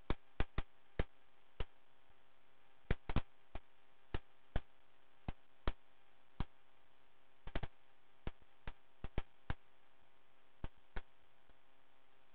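Irregular sharp clicks, about two dozen and sometimes in quick pairs or threes, over a faint steady electrical hum on the cockpit intercom audio feed.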